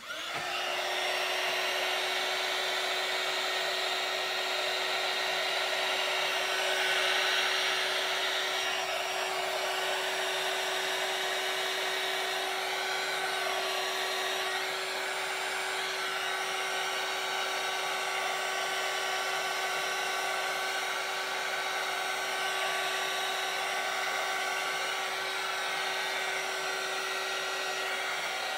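Handheld heat gun switched on and running steadily: an even rush of blown hot air with a constant hum. It is being played over freshly poured resin to blend the pigments together.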